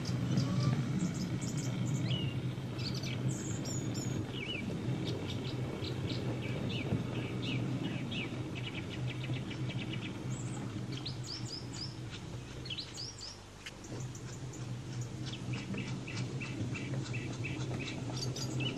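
Many birds chirping and singing in quick short calls, over a steady low rumble of the model freight train's wagons rolling along the track. The rumble dips briefly about two-thirds of the way through.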